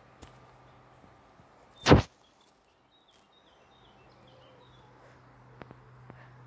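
A single brief, loud thump about two seconds in, with faint bird chirps after it.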